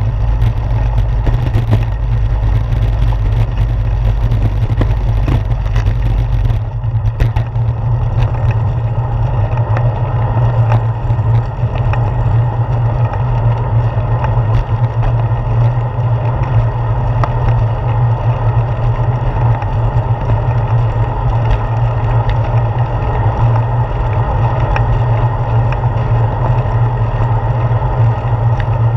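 Wind buffeting the microphone of a handlebar-mounted GoPro Hero 4, along with road vibration from the moving bicycle: a steady, loud low rumble. About six seconds in, the higher hiss drops away and the deepest rumble eases a little.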